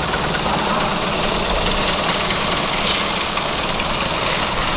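Boat engine running steadily, with a single clink of a metal spatula against the wok about three seconds in.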